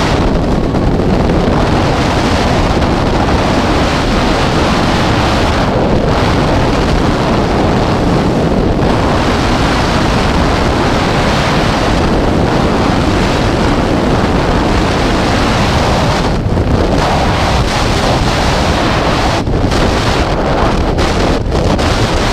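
Loud, steady rush of freefall wind buffeting the camera's microphone during a tandem skydive, with brief dips in the upper hiss now and then.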